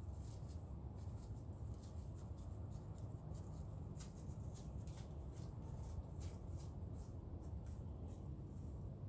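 Light, irregular crackles and rustles in dry leaves or twigs, a few each second, over a steady low outdoor rumble.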